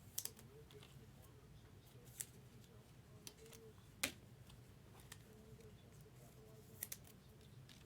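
Faint scattered clicks and plastic handling noises of baseball cards being slid into protective sleeves, with a sharper click about four seconds in and a quick double click near the end.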